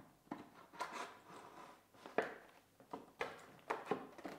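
EPO foam wing halves being slid onto the spar and pushed together by hand: irregular rubbing and scraping with a few sharp knocks.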